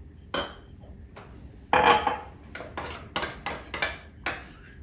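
A metal spoon stirring a thick flour and sour-cream mixture in a glass mug, clinking against the glass in quick strokes of about four or five a second, with a louder knock about two seconds in.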